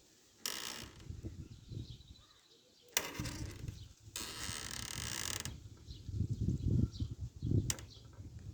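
A door creaking on its hinges in several separate drawn-out creaks, the longest about a second and a half. Low knocks follow near the end, with one sharp click.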